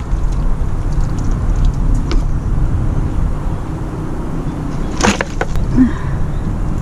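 Wind buffeting the microphone: a steady low rumble, with a sharp clack about five seconds in.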